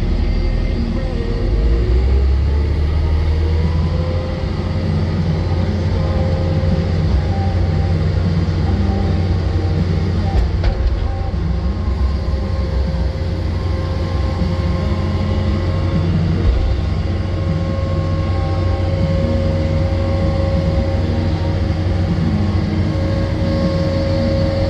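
Takeuchi TL10V2 skid steer's diesel engine running steadily in a deep drone, with thin steady whining tones above it.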